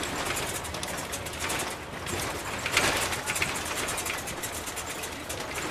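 Vehicle driving over a rough road-construction surface: steady road noise with a rapid, irregular rattle of clicks and knocks, louder for a moment about three seconds in.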